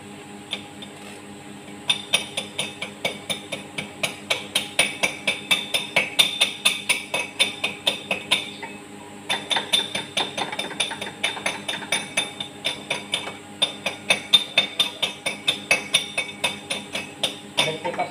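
Small hammer tapping rapidly on a fresh stick weld on a cast-iron tractor rear axle housing, about four sharp metallic blows a second, with a short pause about halfway through.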